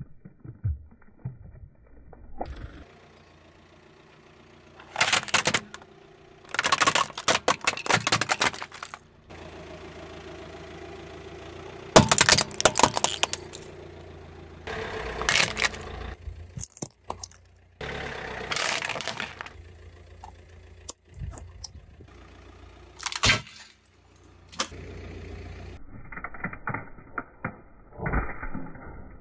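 A car tyre rolling over and crushing a series of objects one after another, toothpaste tubes with balloons on them and plastic items, each giving a burst of sharp cracks, pops and crunching, a few seconds apart.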